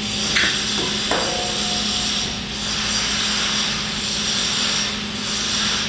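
Wire-feed welding arc running .045 gas-shielded flux-cored wire on a vertical-up (3G) weld: a steady crackling sizzle with a few sharper pops in the first second or so, over a steady low hum.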